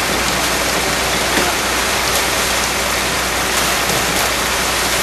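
Wet concrete pouring from a ready-mix truck's chute into a steel wheelbarrow pan, a steady rushing hiss with a low hum underneath.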